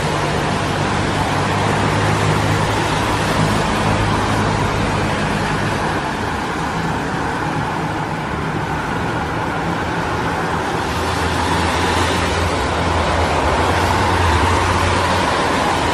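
Steady road traffic noise: engines running and tyres on the road, with a deep engine hum underneath whose pitch changes about eleven seconds in.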